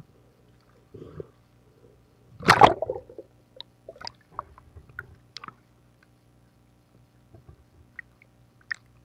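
Water splashing and sloshing as a diver goes under the surface, with one loud rush of water about two and a half seconds in, then scattered small clicks and pops. A faint steady hum runs underneath.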